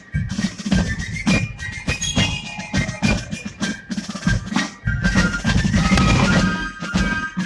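Military band music led by drums: fast snare strokes and rolls over bass drum, with a high piped melody above.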